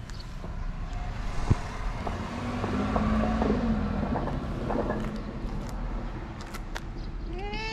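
A fluffy tabby cat gives one short meow near the end, rising and then falling in pitch. Under it runs a steady low rumble that swells into a hum around the middle.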